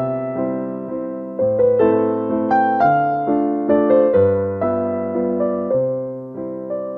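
Background piano music: single notes and chords struck about every half second, each fading away before the next.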